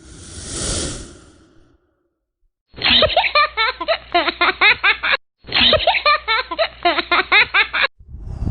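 A single breathy rush of air at the start, then laughter in two long runs of quick, repeated bursts, the second starting about five and a half seconds in.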